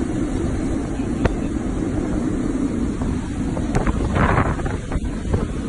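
Tropical cyclone wind and heavy rain, a steady loud roar buffeting the phone's microphone, with a few sharp knocks.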